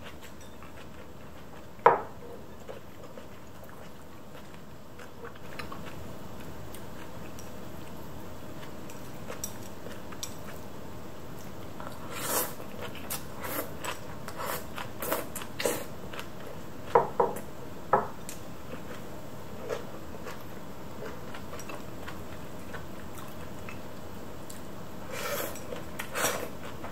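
Chopsticks clicking against ceramic bowls and plates during a meal: a single sharp clink about two seconds in, then scattered clusters of light clicks around the middle and near the end.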